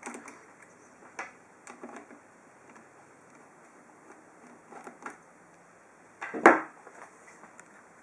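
Screwdriver undoing two screws on a Honda EU10i generator's cover: scattered small metallic clicks and scrapes, with one louder clack about six and a half seconds in.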